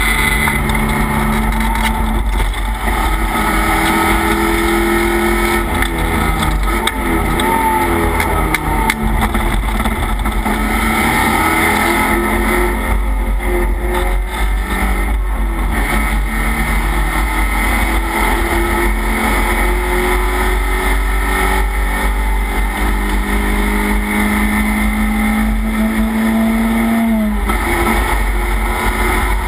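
Race car engine heard from inside the stripped, caged cockpit under hard driving, its pitch repeatedly climbing and falling as it accelerates and slows for corners, over loud wind and road noise. Near the end a long climb in revs cuts off sharply.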